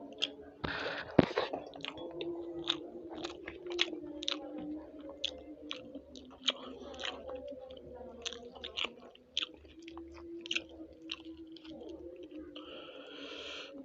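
A person chewing food with many wet mouth clicks and smacks, several a second. There is a louder, longer noisy bite or crunch about a second in and another near the end.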